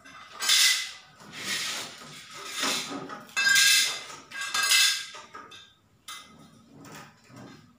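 A hand tool scraping in about five strokes over reflective sticker film on a road-sign panel, each stroke under a second, followed by fainter light scratches and taps.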